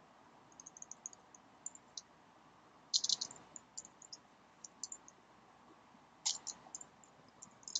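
Computer keyboard keystrokes: light, scattered typing clicks, with a quick run of keys about three seconds in and another about six seconds in.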